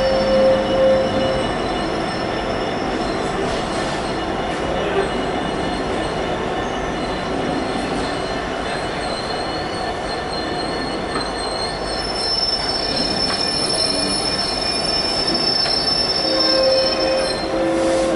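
Container wagons of a freight train rolling past close by: a steady rumble of wheels on the rails. A thin, high wheel squeal comes in about halfway through.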